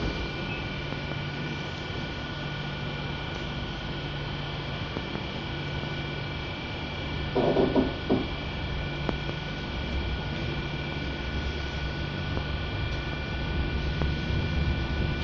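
Steady running noise heard inside a moving passenger train, a low hum with a few steady whining tones above it. There is a brief clatter just before halfway, and a low rumble grows louder near the end.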